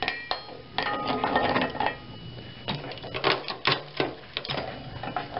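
Metallic clanking and rattling as a hard drive is set into the jaw of a steel lever-operated hard drive crusher. There are many sharp clanks and knocks, and some of them ring briefly, the first just at the start.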